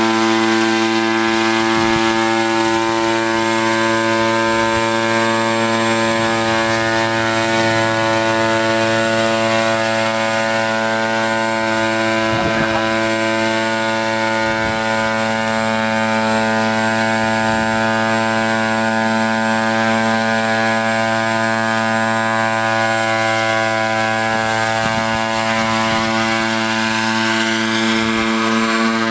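Gasoline engine of a hybrid gas-electric pentacopter running at a steady speed in flight: a loud, even drone at an unchanging pitch.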